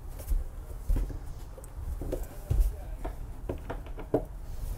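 Footsteps and camera handling on a boat's deck: a few dull thumps and scattered light clicks and knocks, with no steady sound.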